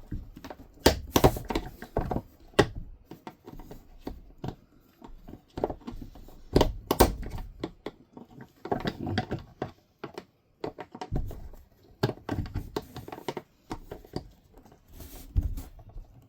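Irregular clicks and knocks of a screwdriver and hands working the plastic push tabs that hold an RV toilet's water valve, prying the valve loose.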